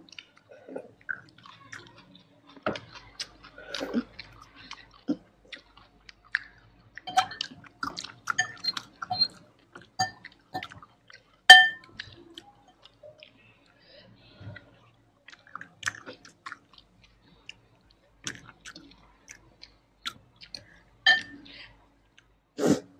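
Close-miked chewing and wet mouth sounds of eating, heard as irregular sharp smacks and clicks with short pauses between them. The loudest click comes about halfway through.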